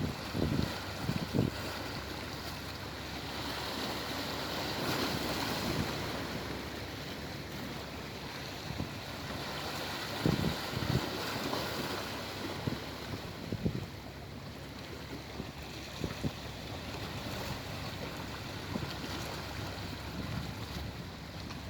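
Sea waves washing in a continuous surf, swelling for a few seconds and easing off, with scattered brief low thuds from wind on the microphone.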